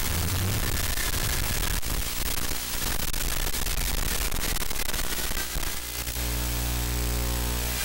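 Steady static hiss from an analog 5.8 GHz FPV video link, with a faint whine that drifts slightly in pitch. About six seconds in, a low steady buzz sets in under the hiss.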